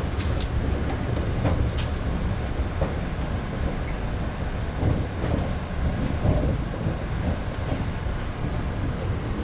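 Inside a moving MBTA Red Line subway car: the train runs on the rails with a steady low rumble, with a few sharp clicks in the first two seconds.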